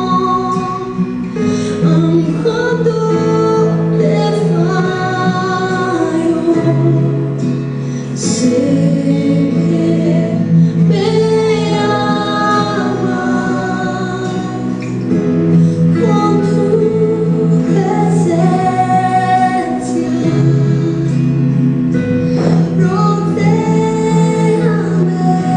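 Worship song playing: a woman singing slow, held melody lines over sustained accompaniment.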